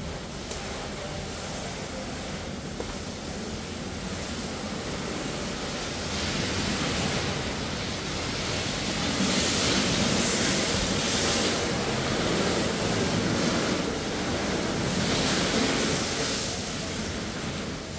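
A steady rushing noise that grows louder from about six seconds in, with stronger surges around ten and fifteen seconds, then eases off near the end.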